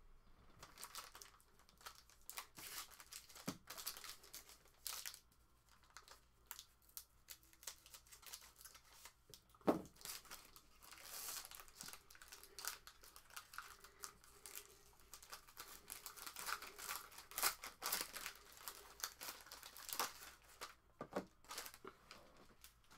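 A sealed foil trading-card pack being torn open and its wrapper crinkled by hand, giving irregular crackling and rustling, with one sharp snap about ten seconds in.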